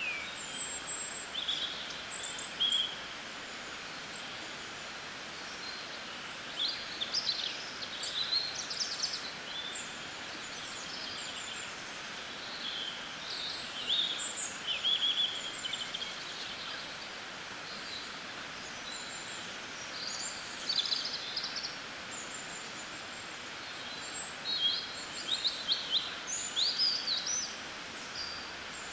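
Songbirds singing in short bouts of high chirps and warbles, a few seconds apart, over a steady outdoor background hiss.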